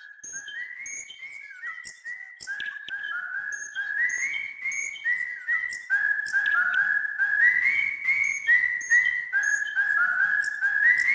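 Birds at a nest chirping: a fast run of short, clear whistled notes, about three a second, stepping up and down between a few pitches and growing louder.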